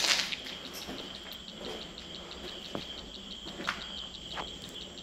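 Crickets chirping in a steady high trill with a fast, even pulse. A sharp click right at the start, then a few scattered light footsteps on a debris-strewn floor.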